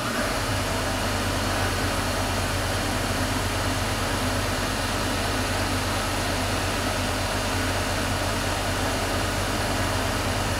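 Tormach CNC lathe running its spindle at speed, a steady mechanical hum and hiss, while a cubic boron nitride insert takes a light test cut on a hardened steel dowel pin.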